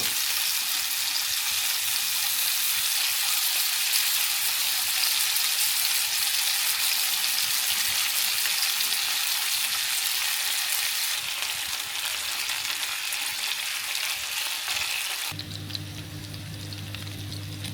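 Food sizzling as it fries in a pan, a steady crackling hiss. About fifteen seconds in the sizzle becomes fainter and a low steady hum comes in.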